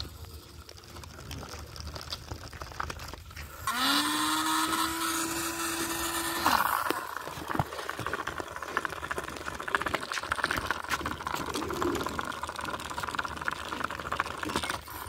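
Small electric motor of a homemade cardboard toy car running as the car drives over dirt, a buzzing whir with rattle. About four seconds in, a louder steady tone rises in pitch, holds for nearly three seconds and cuts off suddenly.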